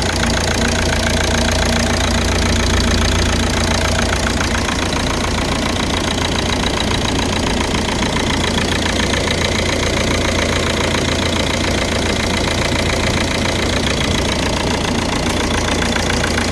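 Engine running steadily at idle, now started after being fixed from a crank-but-no-start fault.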